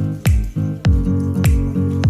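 Background music with a steady beat: a deep kick drum about every 0.6 s under sustained pitched notes and sharp percussion ticks.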